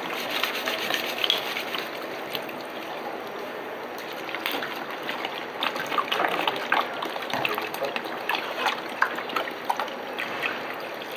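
Red wine poured from bottles into a stainless-steel hotel pan of diced venison and vegetables, a steady splashing pour with scattered short clicks.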